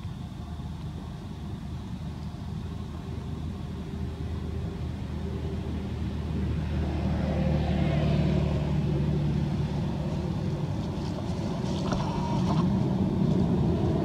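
A motor vehicle's engine running steadily, growing louder over the first half as it draws near, then holding on, with a few faint clicks near the end.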